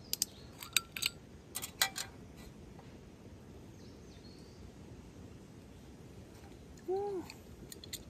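Sharp clinks and clicks of a glass liquor bottle being handled in the first two seconds. About seven seconds in comes a single short hoot that rises and falls.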